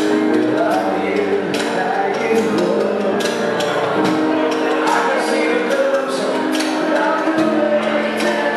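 Band music: held chords with drum hits at a regular beat, and no clear lead vocal.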